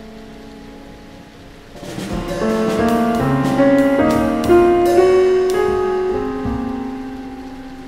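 Piano music: soft held notes fading, then about two seconds in a flurry of struck notes that swells, rings out and slowly dies away.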